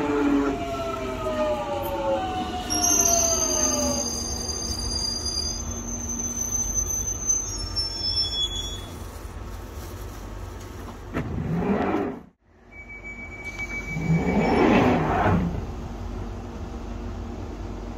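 A Jubilee line 1996-stock Underground train braking to a stop: its traction motors whine in several tones falling steadily in pitch, then the brakes squeal high for several seconds as it halts. Later a brief rising noise cuts off abruptly, followed by a louder rush of train noise.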